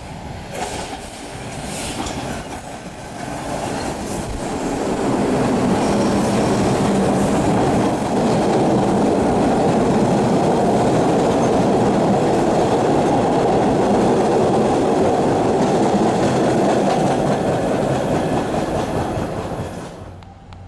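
MBTA Orange Line subway train rolling past close by along the platform. It grows louder over the first few seconds, runs at a steady, loud rush of wheels on rail, then fades away near the end.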